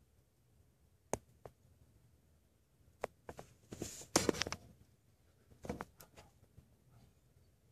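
Quiet indoor room tone broken by a few sharp clicks and short rustles, loudest about four seconds in: handling noise from the camera being held and moved behind a window.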